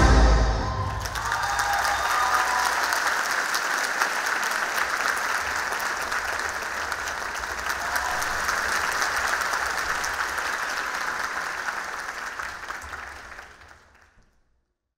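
Audience applauding: dense, steady clapping that follows the end of the music in the first second and fades out near the end.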